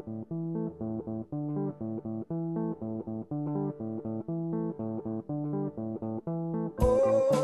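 Background music: a repeating plucked guitar and bass riff, with a fuller band and drums coming in, louder, near the end.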